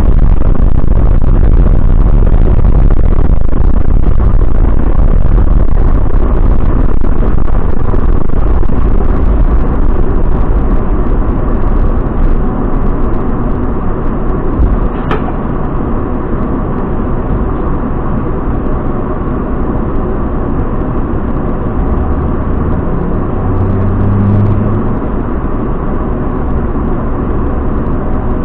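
Coach's engine and road noise heard from the driver's cab while driving, a loud, steady low rumble that eases somewhat about halfway through. A single sharp click comes about halfway.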